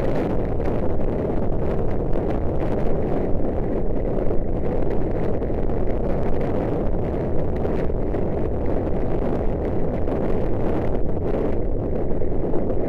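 Steady rush of wind buffeting a helmet camera's microphone on a galloping racehorse, with the horse's hoofbeats thudding under it.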